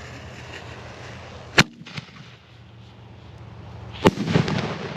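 A Rambo consumer canister firework shell: a sharp bang about a second and a half in as it is launched from its mortar tube, a smaller pop just after, then a loud slapping break high up about four seconds in, followed by a rumbling echo and crackle.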